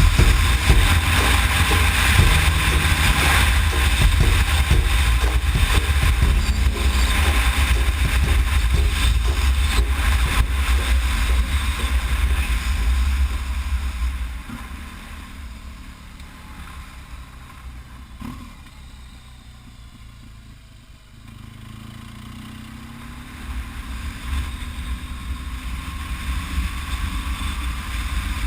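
BMW R1200GS Adventure's boxer-twin engine running while the bike is ridden, with heavy wind noise on the microphone. The noise is loud for the first half, drops off in a quieter stretch past the middle, then the engine picks up revs with a rising tone near the end.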